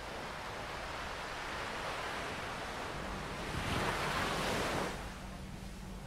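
Mediterranean surf washing on the beach mixed with wind on the microphone, a steady rush that swells louder for about a second a little past halfway, then eases back.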